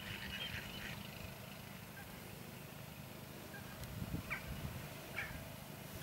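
Waterfowl calling: a quick run of short calls in the first second, then two brief single calls later on, over wind buffeting the microphone.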